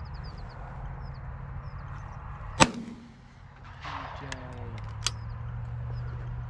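A single loud shotgun blast about two and a half seconds in, fired at incoming doves, with a fainter sharp crack about five seconds in.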